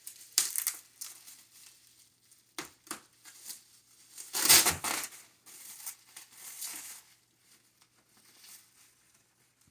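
Packaging wrap on a sealed card box being cut and torn open: irregular bursts of crinkling and tearing, loudest about four and a half seconds in.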